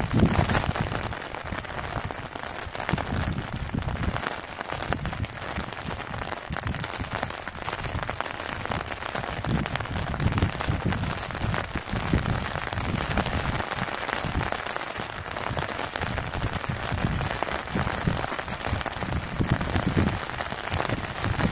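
Steady rain falling, an even hiss throughout, with irregular low rumbles that come and go every second or two.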